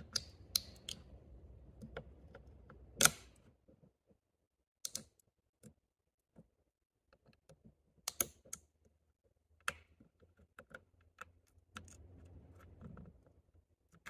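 Small, irregular clicks and taps of a metal seating tool and fingertips on a GM 6L80 TEHCM's switch bore as a new pressure-switch membrane is pushed into place; the loudest tap comes about three seconds in, with a cluster around eight seconds.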